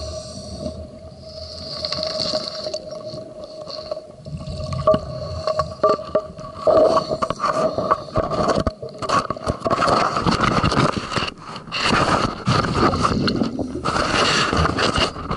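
Underwater handling noise: irregular scraping and rubbing on the camera housing, thickening into dense crackling from about halfway through, with water gurgling and a steady hum underneath.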